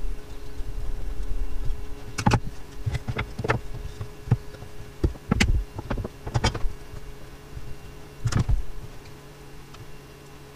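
Wooden battens knocking and clattering against each other and the workbench as a frame is assembled by hand: about nine irregular knocks, the last a little after eight seconds in.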